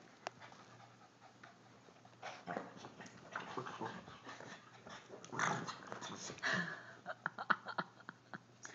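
Small dogs making short vocal sounds as they play, coming more often from about two seconds in and busiest near the end, with a run of quick clicks near the end.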